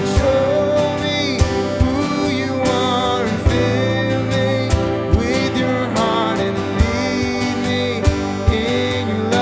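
Worship music: a band with acoustic guitar and a steady drum beat playing a melody.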